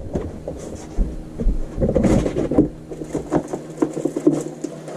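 Someone rummaging through things: scattered light knocks and clatter, a couple of low thumps about a second in, and a brief rustle around two seconds in.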